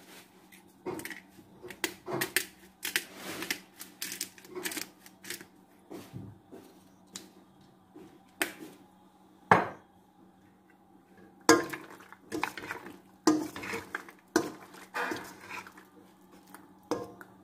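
Long metal spoon stirring penne in a thick four-cheese sauce in a stainless steel pot, with irregular clinks and scrapes against the pot's side and rim. The sharpest knocks come about ten and twelve seconds in.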